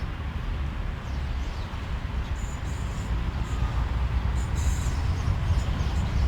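A train approaching on the rails: a steady low rumble that slowly grows louder, with short high-pitched wheel squeals starting about halfway through.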